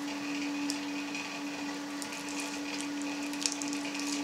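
Hand-cranked vertical sausage stuffer pressing meat into a collagen casing, with a few faint clicks, over a steady hum.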